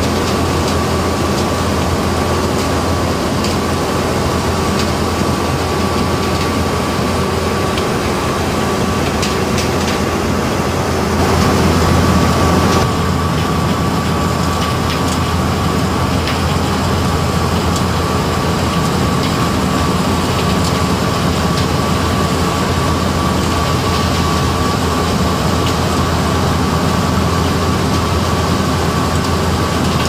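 Sand making plant running: crusher, belt conveyors, vibrating screen and sand washer together make a loud, steady mechanical din with a low hum and a steady thin whine, briefly louder near the middle.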